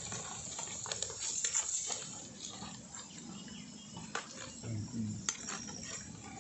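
A metal spoon clinking and scraping in a clay pot of gravy, with a handful of short, sharp clicks scattered through.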